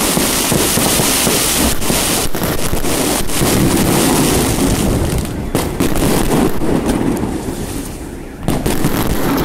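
New Year fireworks salute going off: a rapid string of bangs over a continuous rumble. The rumble eases off about eight seconds in, then another sharp bang follows.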